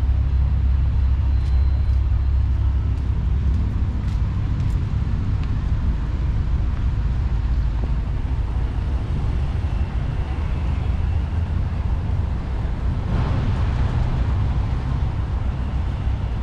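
Busy city street traffic: a steady low rumble of car engines and tyres, with a louder swell of passing-vehicle noise about thirteen seconds in.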